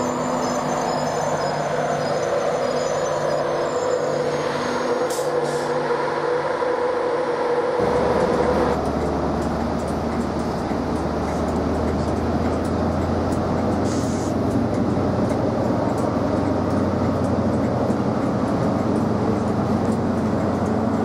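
Diesel engine of a Class 43 HST power car running steadily at a station platform; about eight seconds in its note changes to a deeper, heavier hum.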